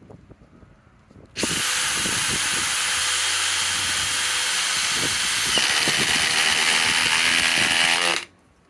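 DeWalt DCF870 hydraulic (oil-pulse) impact driver running under load, driving a fastener in one continuous run of about seven seconds. It starts about a second in, gets a little louder with a change in tone partway through, and cuts off sharply near the end.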